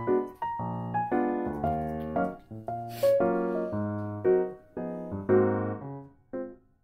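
Background music: a keyboard tune of short, evenly spaced notes and chords, with a brief hiss about three seconds in.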